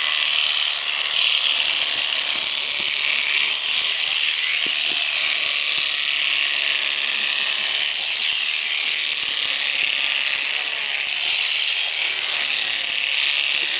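Electric shearing handpiece running steadily as its cutter works through alpaca fleece, a continuous high buzz.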